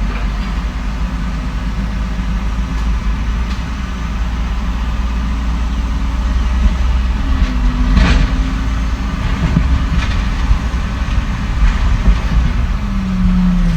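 Heavy diesel construction machinery running with a steady low rumble, its engine revving up briefly a couple of times, with several metal clanks and knocks in the middle.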